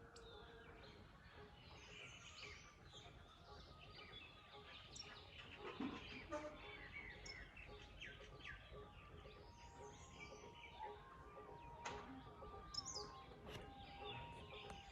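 Faint morning chorus of several birds chirping and tweeting, many short calls overlapping over a steady low outdoor background noise.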